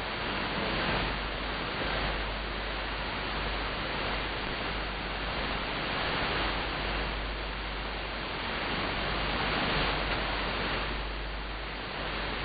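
Shortwave AM reception on 5835 kHz that is mostly hiss and static from the receiver, swelling and ebbing slowly every few seconds, with the pirate station's programme not standing out above the noise.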